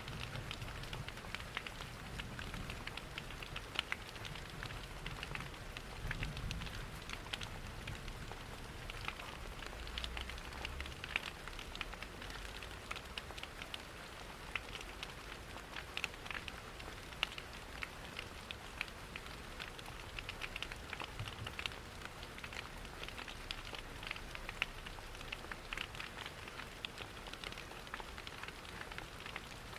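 Steady rain mixed with a crackling wood fire: a constant hiss with frequent small sharp pops and crackles throughout, over a low rumble.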